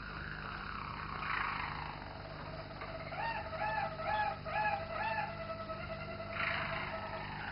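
Roller canary singing its low, rolling contest song: a rolling passage, then a long steady low note under a run of about five repeated arching notes, then another roll near the end.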